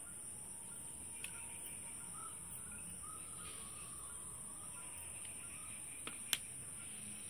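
Faint bird chirps over a steady hiss, with a light click a little over a second in and a sharp tap on a steel plate just after six seconds, as a hand picks okra from it.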